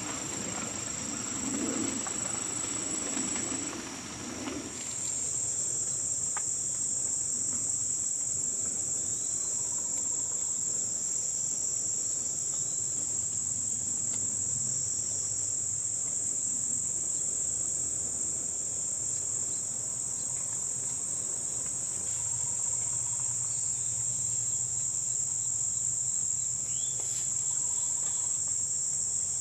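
Steady high-pitched chorus of insects buzzing without a break, with some lower rustling noise that dies away about five seconds in.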